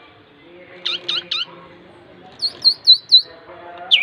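Young Javan pied starling (jalak suren) calling: three quick, sharp chirps about a second in, then a run of four louder, high chirps about two and a half seconds in, over a faint steady background drone.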